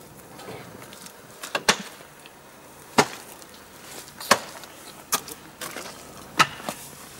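Hi-Lift jack being pumped, lifting a stuck off-road vehicle: sharp metallic clacks of the jack's mechanism, roughly one a second, with a few lighter clicks between.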